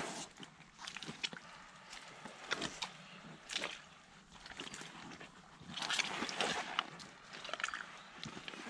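Rubber boots squelching and sucking in sticky wet clay mud as the wearer treads and sinks in, in irregular bursts, with a denser run of squelches a little past the middle.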